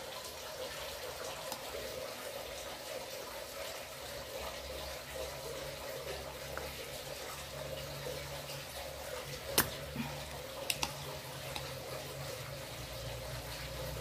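A steady low hum, then one sharp snap a little over halfway through and two lighter clicks about a second later: a spring-loaded desoldering pump (solder sucker) firing while solder is cleared from a washing machine control board.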